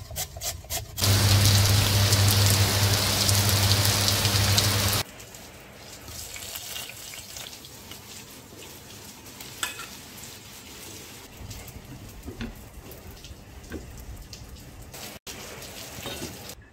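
A few quick strokes of radish on a metal box grater. Then a loud steady rushing noise with a low hum runs for about four seconds and stops abruptly. After it comes a softer sizzling with scattered light clicks from the pot on the gas flame.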